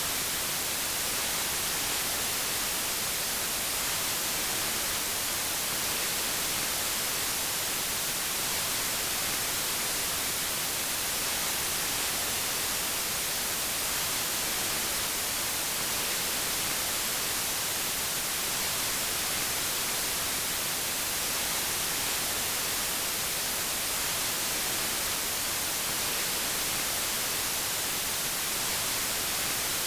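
Steady white noise: an even hiss across the whole range, unchanging throughout.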